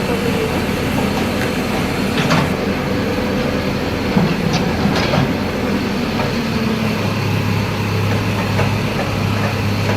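A steady engine rumble with constant mechanical noise. A low steady hum joins in about seven seconds in.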